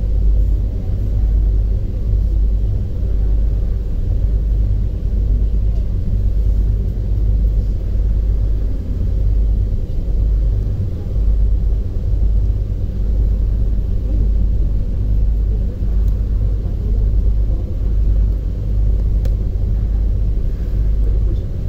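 Steady low rumble of a harbour ferry under way, its level swelling and dipping slightly from moment to moment.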